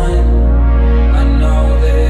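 Electronic hip hop music: a deep held bass note that shifts to a new pitch just after the start, under sustained synth chords.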